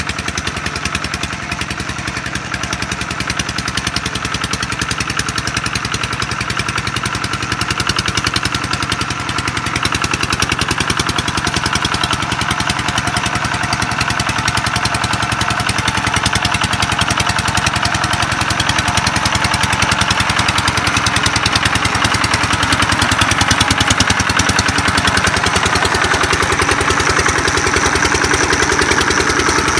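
Công nông farm truck's single-cylinder diesel engine running steadily with a fast, even beat, growing gradually louder.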